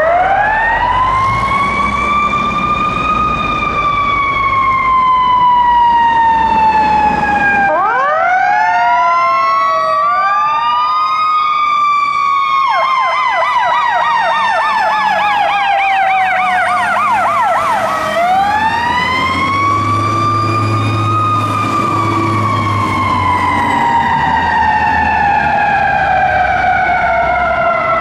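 Fire truck sirens: a wail that winds up quickly and slowly falls, again and again, with a second siren overlapping it. For several seconds about halfway through it switches to a fast warbling yelp. Engine rumble runs underneath.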